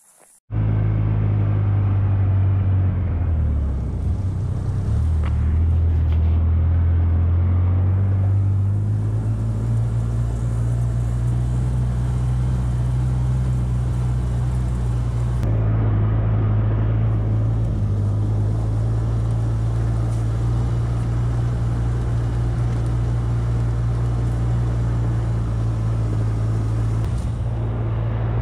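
A vehicle's engine runs steadily while driving along a grassy trail. Its note dips a few seconds in and climbs back up by about nine seconds as the speed changes.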